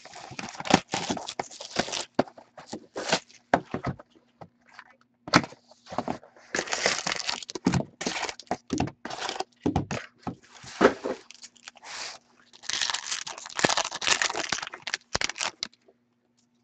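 Plastic shrink-wrap being torn off a hockey card box, then the box opened and the card packs handled: irregular crinkling, tearing and rustling in clusters, stopping shortly before the end.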